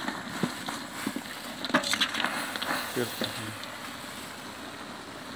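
Long-handled ladle stirring and scraping chicken pieces in a large metal pot, with several clinks and knocks against the pot over a steady hiss from the cooking.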